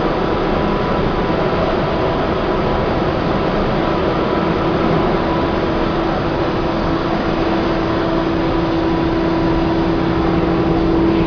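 CNC router running, a steady loud whir with a constant hum that grows stronger over the second half.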